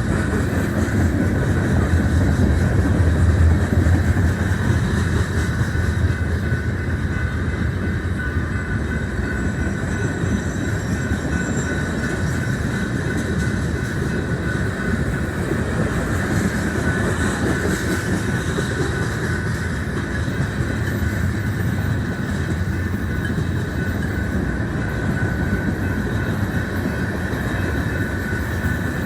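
Freight cars of a BNSF manifest freight train rolling past: a steady rumble of steel wheels on rail, loudest in the first few seconds.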